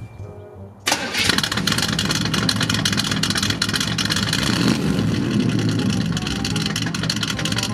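Buick's engine starting about a second in and running through a tailpipe plugged with a banana, then revved, louder near the middle, as exhaust pressure blows the banana out of the pipe.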